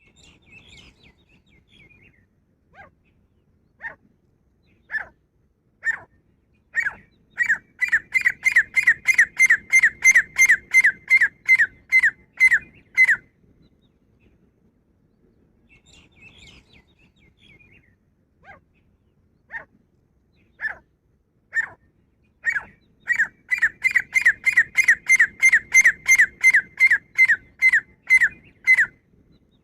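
Grey francolin calling: single loud notes about a second apart speed up into a fast ringing series of about three notes a second, lasting some six seconds. After a pause with faint twittering, the same build-up comes again.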